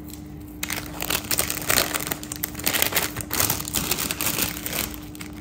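Thin plastic jewellery pouches crinkling and rustling as a beaded necklace is packed into one and handled, starting about half a second in.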